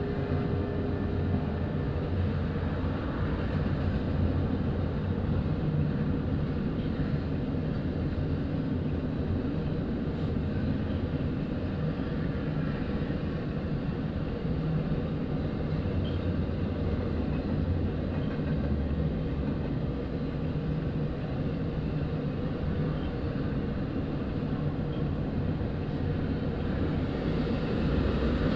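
Double-stack intermodal freight train rolling past: a steady low rumble of wagons and wheels on the rails.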